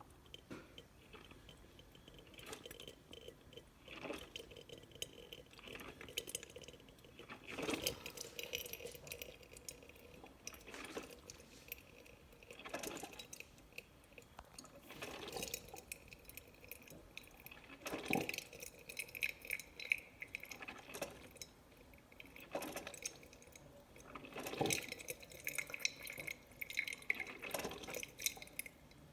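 Drip coffee maker brewing water through, with irregular gurgles, sputters and drips every second or two.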